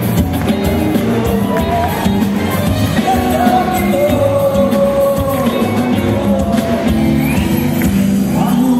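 Live band music, drums and electric guitar under a woman singing into a microphone, with shouts and whoops from the audience, heard from among the crowd.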